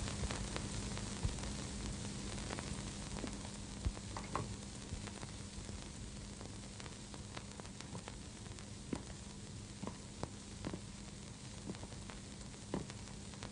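Background noise of an old film soundtrack: a steady hiss and crackle with scattered faint clicks over a low steady hum.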